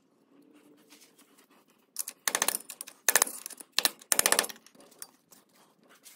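Four or five short bursts of rapid metallic clicking from a hand tool working the spindle nut on a K5 Blazer's front wheel hub.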